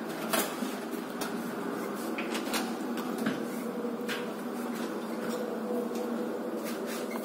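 A room door being opened and gone through: a sharp latch click about a third of a second in, then several lighter clicks and knocks. A steady hum runs underneath.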